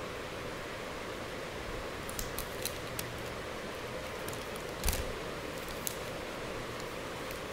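Clear plastic protective film being peeled off a smartphone and handled: a few short crackling clicks and one louder tap about five seconds in, over a steady hiss.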